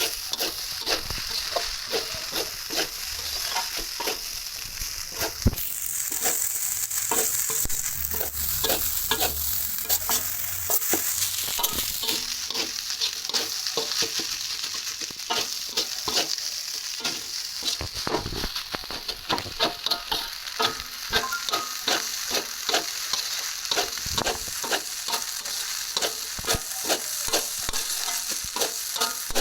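Food sizzling as it is stir-fried in a pan, with a spatula clicking and scraping against the pan several times a second.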